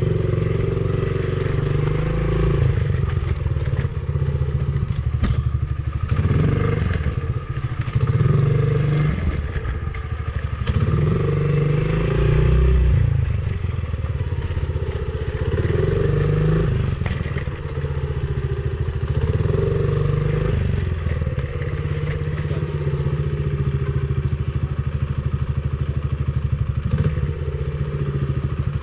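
Dirt bike engine running, its revs rising and falling again and again, with occasional knocks and rattles.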